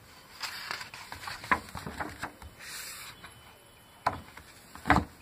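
Pages of a picture book being turned and handled: a brief papery swish near the middle, with several light taps and knocks from the book and hands, the strongest about a second before the end.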